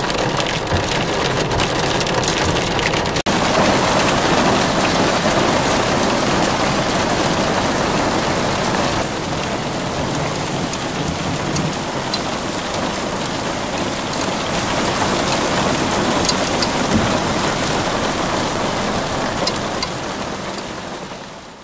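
Heavy fall of small hail, the hailstones striking the ground in a dense, steady noise. There is a brief dropout about three seconds in, and the sound fades away near the end.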